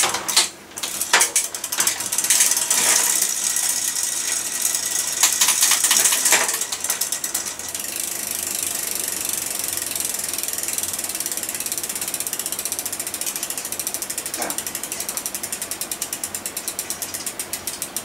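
Bicycle rear hub freewheel clicking fast and evenly as the rear wheel spins on in the work stand, the clicks slowing slightly toward the end. For the first six or seven seconds louder chain and drivetrain noise rides over it, as the cranks are turned by hand through the rear derailleur.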